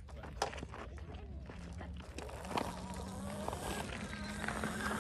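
Child's mini motorbike's motor giving a thin, steady whine as it pulls away, starting about two seconds in.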